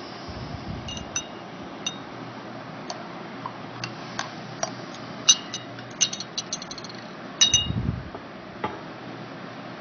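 Scattered light clinks on a glass goblet, a few of them ringing briefly, with two soft low bumps of handling.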